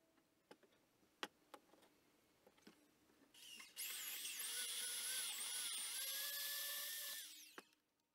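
A few sharp clicks, then a DeWalt portable band saw starts and cuts through a rusty metal bar. Its high whine wavers in pitch as the blade bites and runs for about three and a half seconds before winding down.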